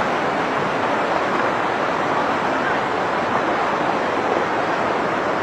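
Muddy river in flash flood, its fast turbulent water rushing in a steady, even noise.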